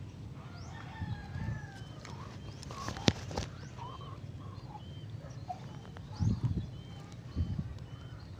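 Birds chirping: short, repeated high calls with a longer, lower call about a second in. A sharp click comes about three seconds in, and a few dull thumps from handling come near the end.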